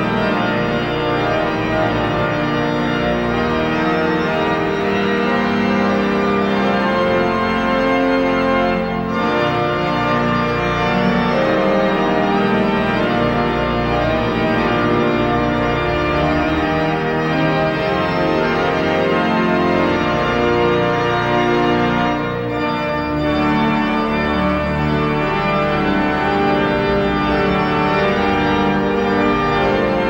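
Pipe organ playing, many notes held together in sustained chords that shift from one to the next, with a brief dip in loudness a little past the middle.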